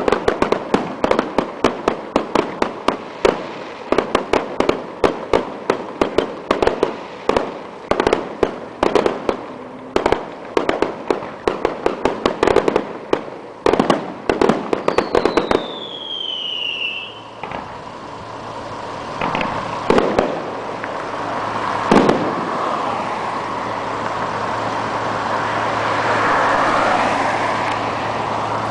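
Aerial fireworks display: a fast barrage of bangs, several a second, for about fifteen seconds, then a short falling whistle and a few single bangs seconds apart. Road traffic runs underneath, with a vehicle swelling past near the end.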